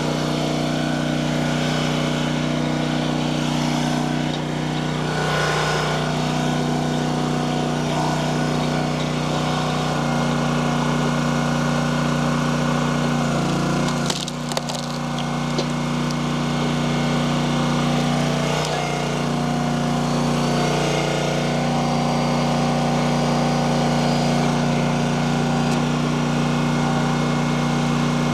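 Gas-powered hydraulic log splitter's engine running steadily, its note dipping briefly a few times under load, with wood cracking and splitting about halfway through.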